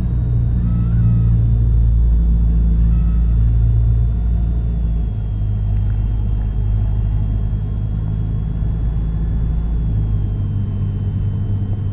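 Cessna 172's piston engine and propeller droning steadily in flight, its note shifting slightly about five seconds in, with a faint thin high whine above it.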